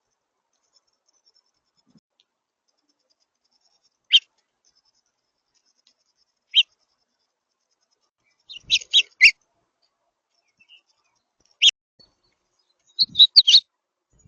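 Short, sharp songbird chip notes, single ones a few seconds apart with two quick clusters of several, around the middle and near the end.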